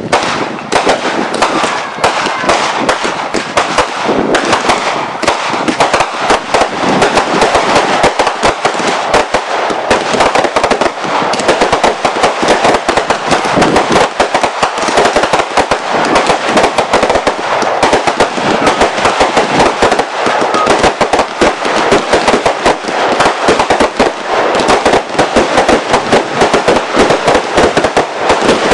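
Fireworks going off in a dense, continuous barrage of rapid cracks and pops, many to the second with no let-up.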